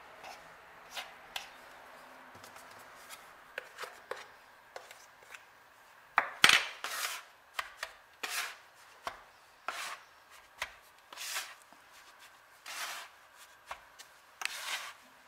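Plastic bench scraper chopping and scraping a flour, egg and sugar mixture against a pastry board, cutting it together into shortcrust dough: irregular taps and scrapes about once a second, the loudest about six seconds in.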